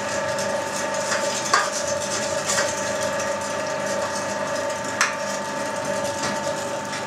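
Electric meat grinder running with a steady whine as it minces pork through a fine plate, with a few short knocks in between.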